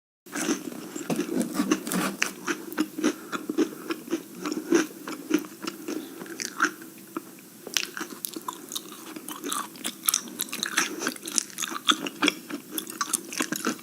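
Close-up irregular crackling and clicking with many sharp snaps, the sound of something being handled right by the microphone.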